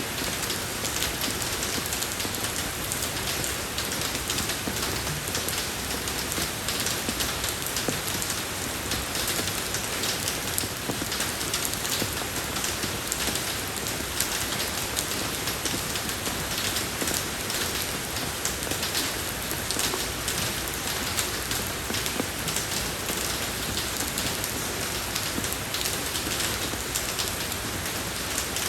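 Steady rain falling on a road surface, an even hiss dotted with many fine drop ticks.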